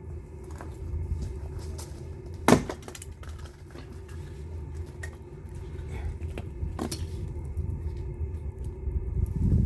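Sharp knocks over a steady low rumble. The loudest knock comes about two and a half seconds in and another comes near seven seconds, with a few lighter clicks between.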